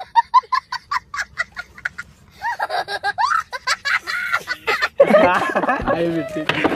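A small child laughing hard: a quick run of cackling, breathy bursts, then longer high whooping laughs that stop about five seconds in.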